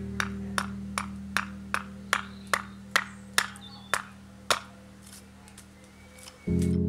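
Hatchet chopping a small seasoned cherry blank on a log chopping block: a run of sharp wooden knocks, about two and a half a second, that stops about four and a half seconds in. Background music plays underneath and comes back loud near the end.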